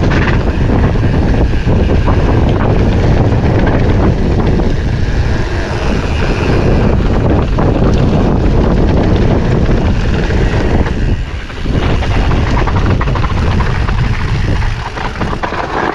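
Wind buffeting the action camera's microphone at riding speed on a downhill mountain bike, with the clatter and knocks of the Commencal Supreme DH29 over rough trail. The noise eases briefly twice, the second time near the end.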